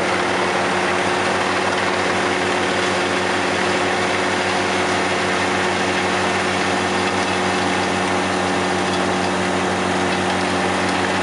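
Tractor-driven wood chipper and tractor engine running steadily: a constant low hum with a wide rushing noise over it, with no let-up or change in level.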